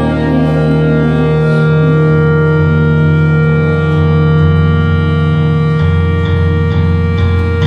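Live indie rock band playing an instrumental passage with no vocals: held, organ-like chords over a moving bass guitar line, with light, evenly spaced beats joining about six seconds in.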